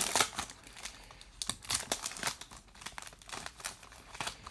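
A trading card pack's wrapper being torn open and crinkled by hand. It starts with a loud rip, and scattered crinkles follow.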